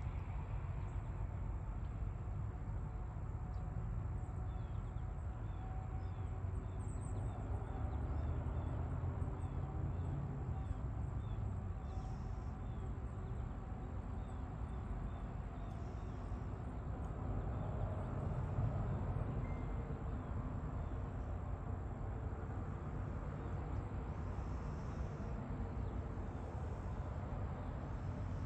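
Rural dawn ambience: a steady, distant low engine rumble that swells and fades twice, with faint rhythmic insect chirping high above it.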